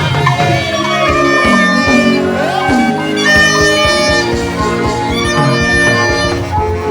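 Instrumental music with held chords, likely a keyboard playing under a church service.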